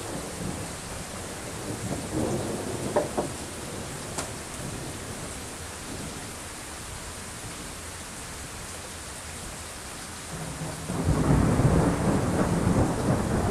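Steady rain throughout, with a low rumble of thunder that swells about eleven seconds in and keeps going. A few short sharp cracks come around three to four seconds in.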